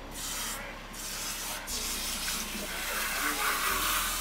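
Water running from a kitchen sink faucet through hair as conditioner is rinsed out: a steady hiss of water that breaks off briefly a little over half a second in and grows louder in the last second or so.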